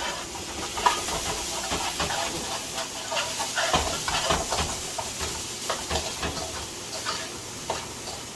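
Masala, curry powder and chopped seasonings frying in hot oil in a pot, a steady sizzle. A spoon clicks and scrapes against the pot as it stirs.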